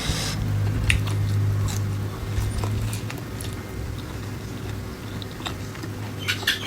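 A person chewing food close to the microphone, with scattered small wet mouth clicks and a few quicker clicks near the end, over a steady low hum.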